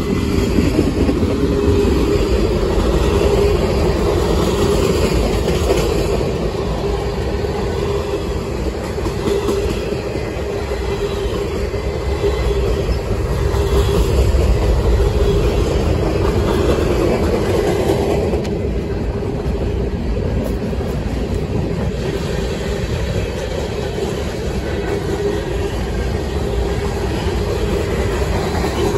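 Freight cars (boxcars, covered hoppers and tank cars) rolling past close by: a steady, loud rumble and clatter of steel wheels on the rails, with a steady ringing tone from the wheels and rails.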